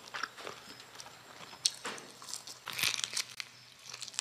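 Close-miked eating sounds: biting, tearing and chewing roasted leg meat and skin, as a run of small crunches, wet clicks and crackles, loudest about halfway through.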